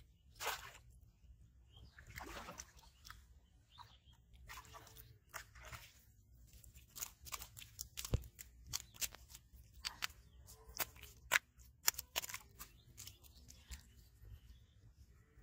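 A landed fish flopping on muddy, grassy ground, making irregular sharp slaps and crackles that come thick and fast in the second half.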